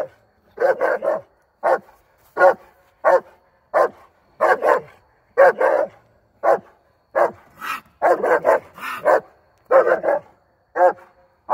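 Treeing Walker coonhound barking in a steady run, about three barks every two seconds, some doubled: the hound is bayed at a raccoon holed up under a vehicle's fender, barking 'treed'.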